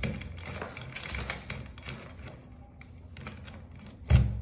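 Quick, irregular small clicks and rattles of a Kwikset SmartKey lock cylinder and key being handled while rekeying to a new key, with a heavier knock about four seconds in.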